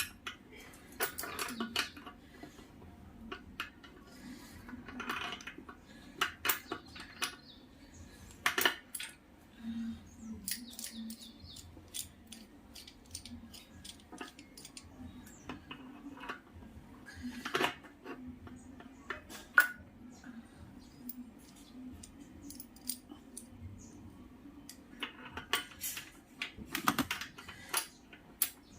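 Irregular metallic clinks and taps of an adjustable wrench on a bicycle suspension's adjuster nut as it is being tightened, with one sharper clack about two-thirds of the way through.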